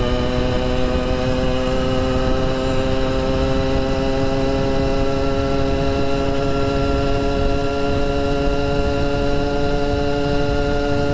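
Small two-stroke bicycle engine running hard, its pitch climbing slowly as the bike gains speed. Wind rumbles over the microphone.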